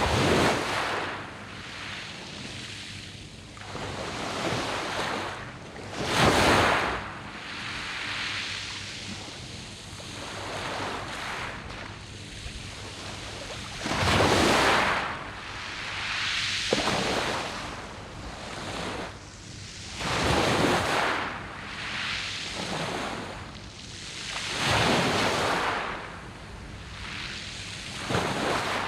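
Sea waves breaking on a beach of round pebbles, surging up loudly about every five to eight seconds, with a softer wash between the breaks.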